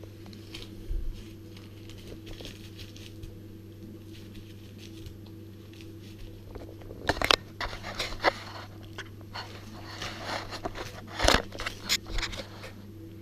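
Small dog tearing and chewing up paper: scattered crinkling, ripping and rustling, sparse at first and busier in the second half, with the loudest rips about seven and eleven seconds in. A steady low hum runs underneath.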